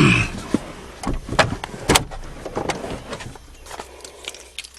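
Scattered sharp clicks and knocks from someone handling a parked car, with no engine running or cranking.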